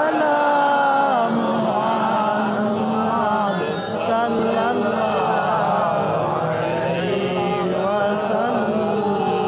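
A man's voice chanting a melodic religious recitation, with long held notes that glide slowly up and down, without a break.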